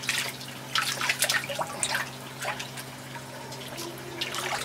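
Rainbow trout yearlings splashing at the surface of an aquaponics tank in a feeding frenzy: a burst of quick splashes and slaps that thins out midway and picks up again near the end, over a steady low hum.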